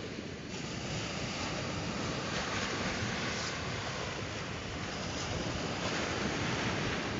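Surf washing onto the beach, with wind noise on the microphone; the sound grows a little louder about half a second in.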